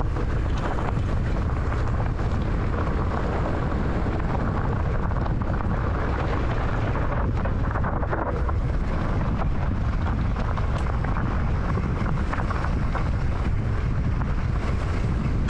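Wind buffeting the microphone of a camera on a moving mountain bike, with steady rumble from the tyres on a dirt trail and a few knocks from bumps around the middle.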